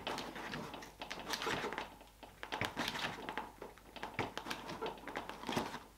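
Hand crimping tool being squeezed again and again to crimp a terminal lug onto a cable end: a series of irregular sharp clicks and taps.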